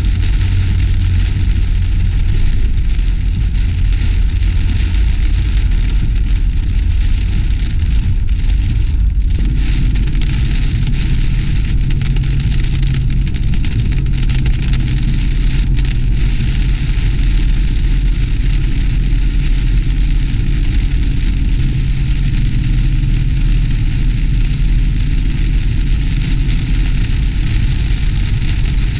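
Heavy rain hissing on a car's roof and windscreen, heard from inside the moving car, over a steady low rumble of engine and tyres on the wet road. The low rumble changes about nine seconds in.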